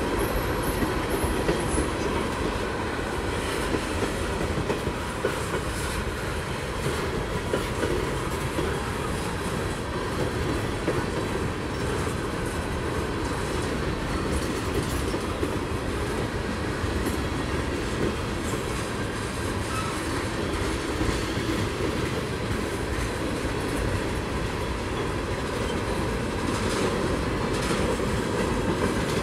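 Freight train cars, a string of tank cars and then a centerbeam flatcar, rolling steadily past: a continuous rolling noise of steel wheels on the rails with faint clicks.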